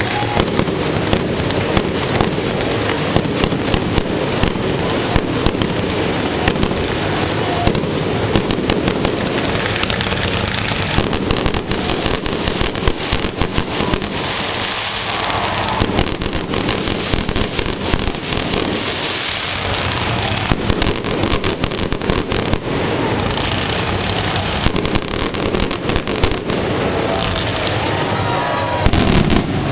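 Fireworks finale: a rapid, unbroken barrage of bangs and crackling aerial shells going off one over another.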